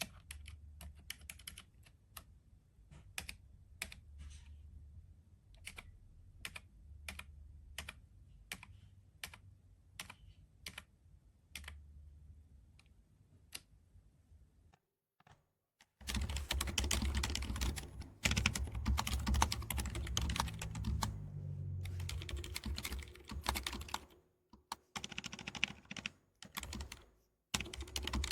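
Typing on a GK Gamakay TK75 V2 silent mechanical keyboard. Single keystrokes come at a slow, scattered pace for the first half. After a short silent pause they give way to fast, continuous typing, which breaks off briefly near the end.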